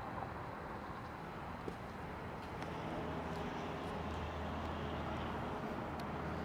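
Turbocharged Scion FR-S's flat-four engine idling steadily, a low hum that grows a little firmer about three seconds in.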